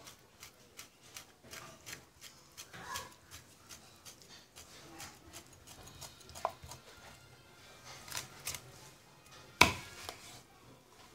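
Cleaver chopping through raw fish on a wooden chopping board: irregular knocks of the blade, a few a second, with one much harder chop near the end.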